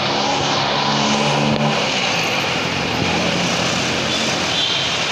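Busy street traffic: a steady wash of road noise, with a motor vehicle's engine humming close by during the first couple of seconds.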